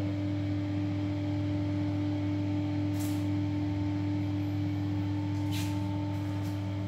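Bathroom extractor fan running with a steady hum, fading a little near the end.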